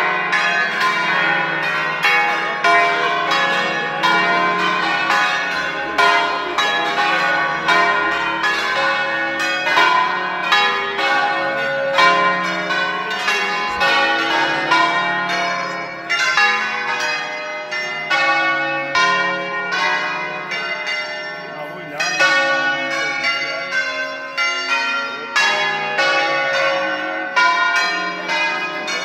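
A peal of ten bronze church bells tuned to a D-flat major scale, the largest about 1135 kg, rung in the Veronese style. The bells are swung full circle and struck one after another in quick succession, and their long ringing overlaps into a continuous melodic concert.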